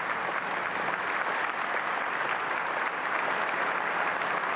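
An audience applauding, a steady, dense clapping.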